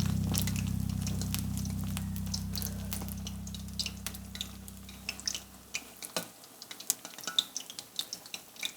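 Low held notes of background music fading out over about six seconds, with small irregular clicks and pops going on throughout.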